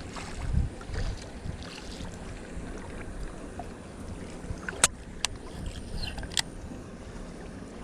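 Wind buffeting the microphone, with lake water lapping against the bank. Gusts rumble in the first second, and three sharp clicks come in the second half.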